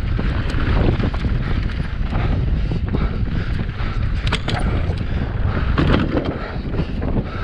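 Wind buffeting the microphone of a camera mounted on a fast-descending mountain bike, with tyres running over a dirt trail and scattered sharp clicks and rattles from the bike.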